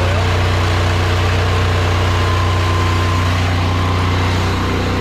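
Engine of a flatbed-mounted pressure washer running steadily, with a low, even drone; its pitch shifts slightly near the end.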